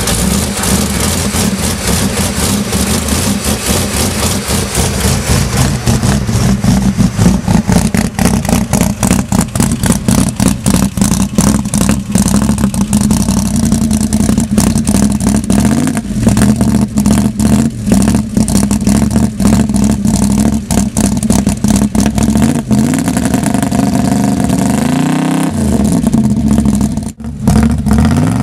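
A 1970 Ford Galaxie's 460 cubic-inch big-block V8 running just after a cold start in deep frost. It is revved up and down several times in the second half.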